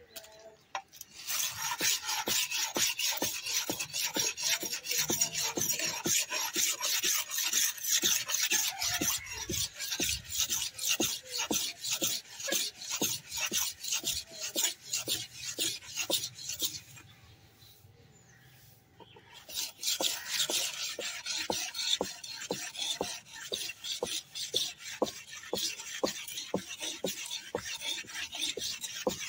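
Steel aruval blade being sharpened on a granite stone: quick rasping scrapes as the blade is stroked back and forth. The strokes stop for a couple of seconds a little past halfway, then resume.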